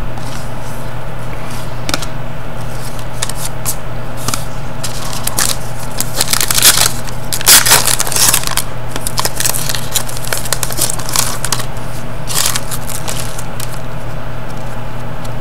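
Foil hockey-card pack wrapper crinkling as it is opened, and trading cards sliding and being shuffled by hand, in short crackly spells busiest midway. A steady low hum runs underneath.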